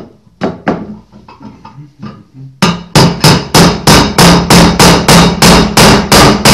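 A hammer strikes a steel bearing driver in rapid, even blows, about three a second, starting a little over halfway through, after a few light metal clicks as the driver is set in place. A new ball bearing is being driven into a heated Zündapp engine case half, and it goes in stiffly.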